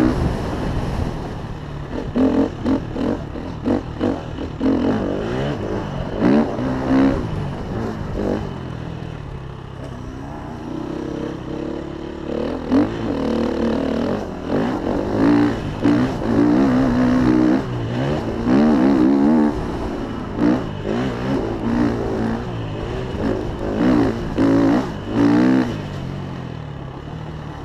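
KTM motocross bike's engine under riding load, its pitch rising and falling over and over as the throttle is opened and shut through the track's jumps and turns, over a constant low wind rumble on the microphone.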